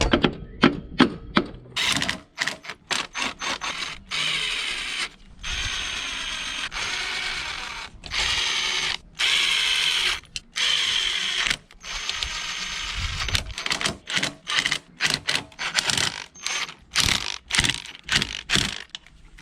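Crankcase cover bolts being fastened back on a Honda NH80 Vision scooter: a tool clicks and ratchets, with several whirring runs of about a second each in the first half of the sound and quicker clicking strokes near the end.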